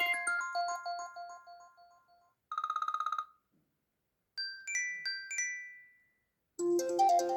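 iPhone 4S ringtones and alert tones played one after another: a chiming mallet-like melody fading out, then a short fast-pulsing buzz, then a few short high chime notes, and a new melody starting near the end.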